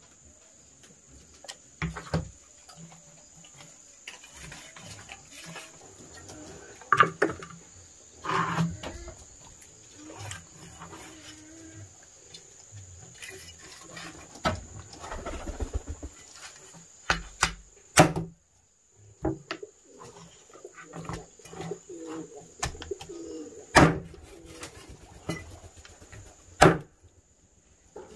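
Bird calls and scattered sharp knocks and clatter over a steady high-pitched insect drone, which cuts out briefly about two-thirds of the way through.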